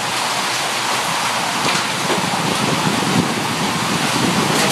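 Heavy hailstorm heard through an open doorway: a steady loud roar of hailstones pelting down, with scattered sharper hits.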